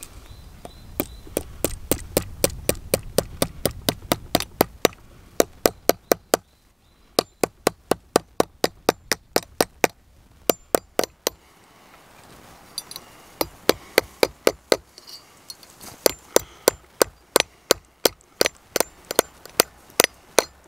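Hammer blows on a copper pin in cold forging, metal striking metal with a bright clink, about three blows a second. The hammering comes in three runs with short pauses between.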